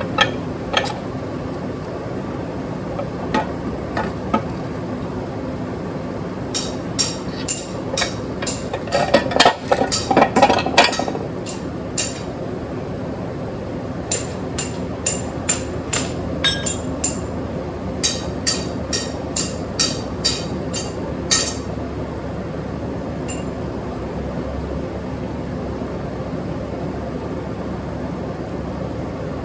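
Metal clinks and taps of an extended oil pan and oil pickup being worked into place on a motorcycle engine, coming in quick runs of several a second and loudest about ten seconds in, over a steady background hum.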